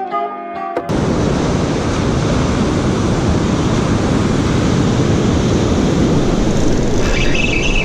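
Background music ends about a second in, then ocean surf breaking on a sandy beach with wind buffeting the microphone, a loud, steady rush.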